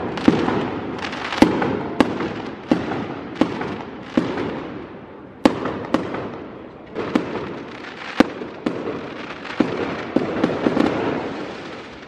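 Fireworks bursting overhead: a steady run of sharp bangs, roughly one every half-second to second, each trailing off in echo with crackling between them.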